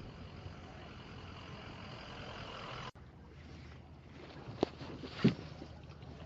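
Kayak out on the water: steady water and wind noise, which drops off abruptly about three seconds in, then two sharp knocks less than a second apart, the loudest sounds here.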